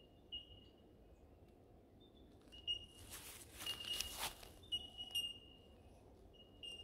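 Bell miners (bellbirds) giving short, clear, bell-like ping notes at irregular intervals. A brief, louder rustle comes between about three and four and a half seconds in.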